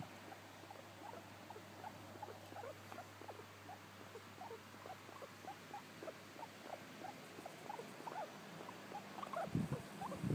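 Guinea pig making a long run of short, soft squeaks, a few a second. A louder knock and rustle near the end.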